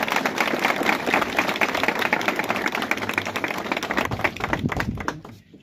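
Crowd applauding, dense clapping that thins out and dies away about five seconds in.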